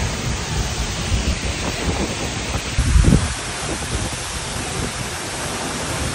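A large waterfall heard up close: a steady rush of falling water and spray, with wind buffeting the microphone in low gusts, the strongest about three seconds in.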